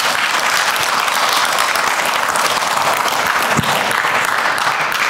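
Audience applauding at the end of a talk, steady for the whole stretch and fading out just after.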